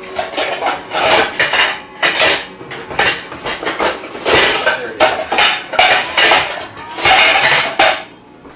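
Metal kitchen utensil clattering and scraping against cookware in many quick, irregular strokes, as when stirring pancake batter or working a pancake in the pan.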